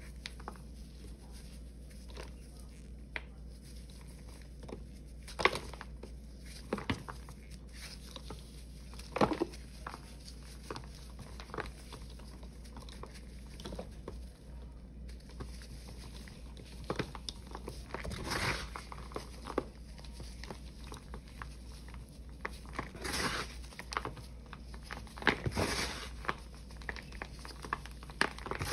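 Ajax, Pine-Sol and Palmolive paste balls crumbled between gloved hands: soft gritty crackling of breaking chunks and falling powder, with several louder crunches as bigger pieces break.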